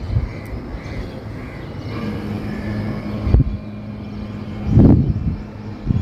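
A steady low engine hum that sets in about two seconds in, under irregular low rumbles and thumps on the microphone, the loudest one about five seconds in.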